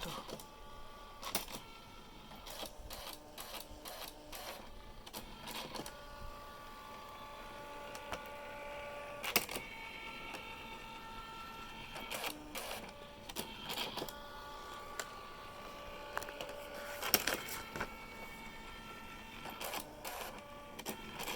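Canon Typestar 3 portable electronic typewriter running its built-in self-test print: a steady motor whine in a few pitches that comes in runs, broken by sharp clicks as the mechanism moves.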